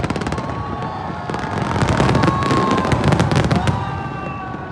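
Fireworks going off: dense rapid crackling over a low rumble, thinning out near the end, with a few thin whistling tones.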